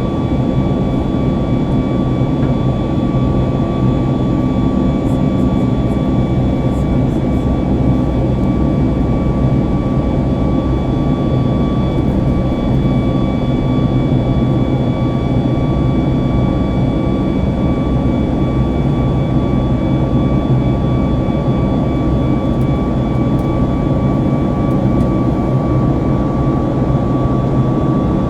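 Boeing 737 MAX's CFM LEAP-1B turbofan engines heard from inside the passenger cabin, running steadily at high power with a constant whine on top of a dense low rush of noise.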